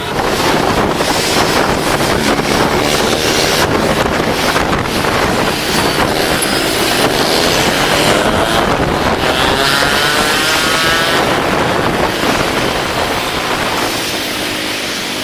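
Busy street traffic with wind buffeting the microphone, the engines running steadily loud; about two-thirds of the way through, a passing engine's pitch sweeps up and down.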